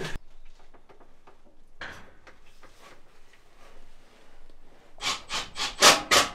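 Faint handling noises, then from about five seconds in a run of quick rasping strokes, about four a second, from hand-tool work on electrical cable.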